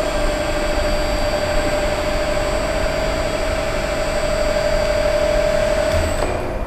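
Fishing-rod strength-testing machine running: a steady hum with a mid-pitched whine that cuts out about six seconds in, with a low thud as it stops.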